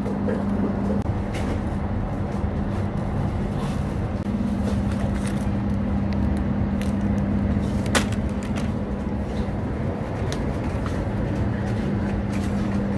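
Metal shopping trolley rolling and rattling over a supermarket floor, over a steady low hum, with a sharp click about eight seconds in.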